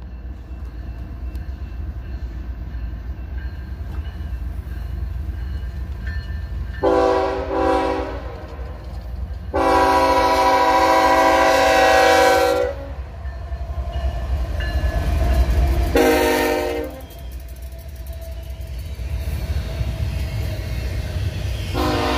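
Union Pacific GE C45AH diesel locomotive approaching and sounding its air horn. There is a broken blast about seven seconds in, a long blast about ten seconds in, a short blast near sixteen seconds, and another long blast starting near the end, matching the long-long-short-long grade-crossing signal. Under the horn, the low rumble of the engine and wheels builds as the locomotive and its double-stack container cars pass.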